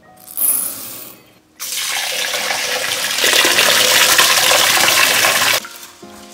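Tap water running hard into a steel bowl of idli rice to wash it, a steady loud splash for about four seconds that cuts off suddenly near the end. Just before it, a brief rattle of sago pearls poured into a glass bowl, and soft background music comes in at the end.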